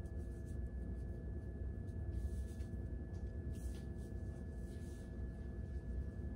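Quiet room tone: a steady low hum with a thin steady whine. Over it come a few soft, brief rustles of long hair being plaited into a fishtail braid by hand.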